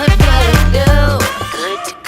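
Pop song with a sung vocal line over a heavy bass beat, fading out near the end.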